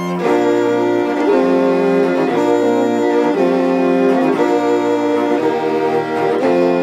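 A string quartet bowing sustained chords, the harmony changing about once a second, with no singing.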